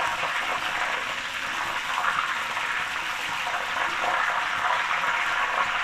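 Thin raw-banana slices deep-frying in hot oil in a kadhai: a steady, even sizzle, sharpened by the little salted turmeric water added to the oil. The sizzle is still strong, the sign that the chips are not yet crisp; it dies away once they are done.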